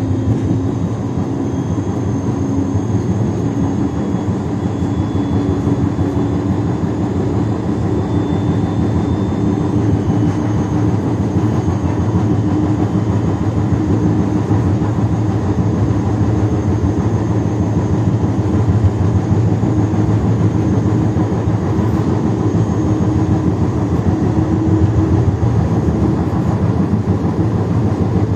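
Siemens Combino Plus tram running along the line: a steady rolling rumble of wheels on rail, with a faint traction-motor tone that climbs slowly in pitch as it gathers speed.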